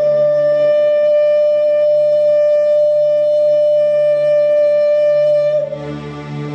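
A woman's voice holding one long sung note into a microphone, steady in pitch, for about five and a half seconds before it stops. Under it, sustained keyboard chords carry on after the voice stops.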